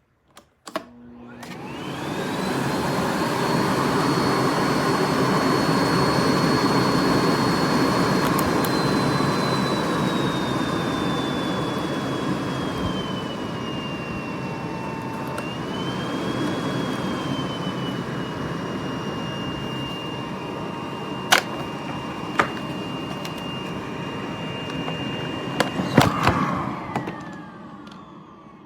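Miele Blizzard CX1 bagless canister vacuum switched on with a click, its motor spinning up over a couple of seconds to a steady high whine. The whine drops in pitch about halfway through, a few sharp knocks come later, and near the end the vacuum is switched off and winds down.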